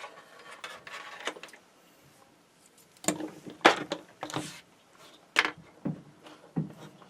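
Small objects being handled and set down on a workbench: scattered sharp clicks and knocks with some rustling, busiest in the middle.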